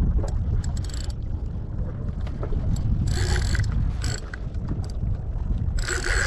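Spinning reel working against a hooked salmon, its mechanism ratcheting in two short bursts, about three seconds in and near the end, over a steady low rumble of wind on the microphone.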